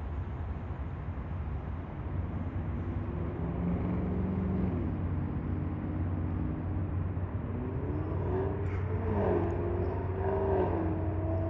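An engine running under a steady low hum, its pitch rising and falling as it revs up and down, louder and busier in the last few seconds.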